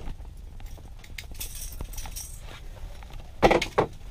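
Light clinks and rustling of a person handling gear and clothing on the ice, with two short loud thumps about three and a half seconds in.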